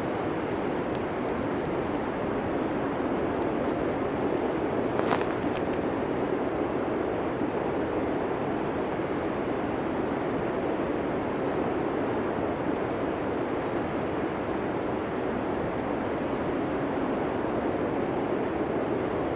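Steady rushing blizzard wind, an even, low-pitched roar with no gusts standing out, with a brief sharp crackle about five seconds in.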